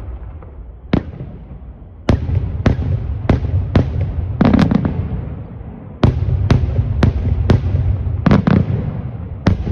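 Aerial fireworks salutes bursting in a rapid, irregular series of about fourteen sharp, loud bangs. Low rumbling and echo fill the gaps between reports.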